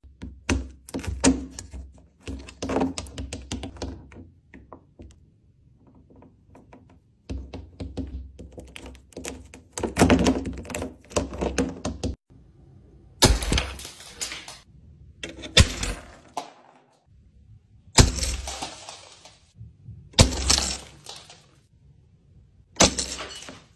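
Chocolate coating cracking and breaking: crunchy crackling breaks through the first dozen seconds, then five sharp snaps a couple of seconds apart.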